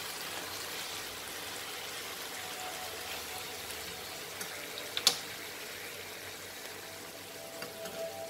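Methi chicken curry simmering in the pan with a steady, low hiss, and one sharp click about five seconds in.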